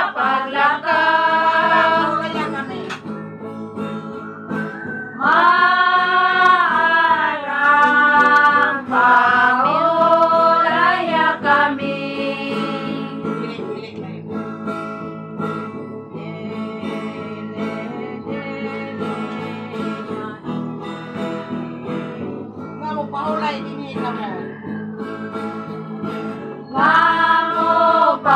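Voices singing a slow song to a strummed acoustic guitar, loud in the first half, dropping to a softer passage for the middle stretch, and swelling again near the end.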